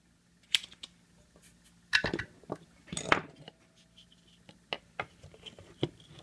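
A few light knocks and clinks at irregular spacing, the loudest a little after two and three seconds in, as a small power-supply circuit board and metal tools are handled and set down on a workbench.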